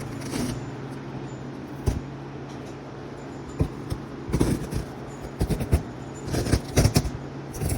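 Irregular scratching and rustling as old foam and glue residue is worked off a car headliner backboard, in short clusters over a steady low hum.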